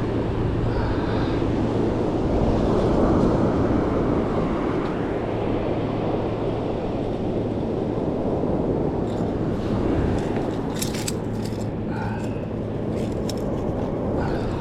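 Ocean surf washing on the beach with wind buffeting the microphone, a steady rushing noise, with a few sharp clicks near the end.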